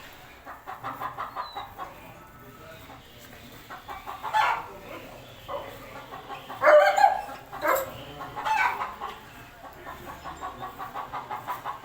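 Chickens clucking in a steady run of short clucks, with a few louder calls in the middle.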